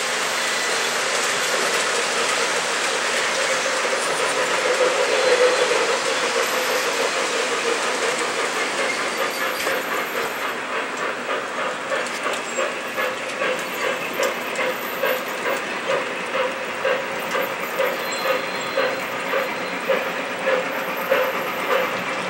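O scale model steam locomotive, a K-Line New York Central Hudson, and its train running on three-rail track: a steady rolling rumble of wheels on the rails. About halfway through, an even beat of roughly one and a half pulses a second sets in as the engine comes near.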